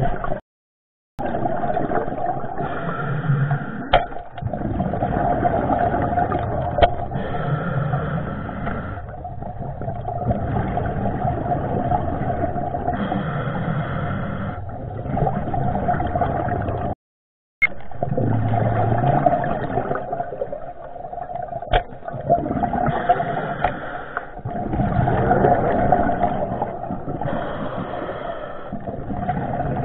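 Muffled underwater noise picked up through a waterproof camera housing, swelling and fading every few seconds, with a few sharp knocks against the housing or gear. The sound cuts out completely twice, briefly.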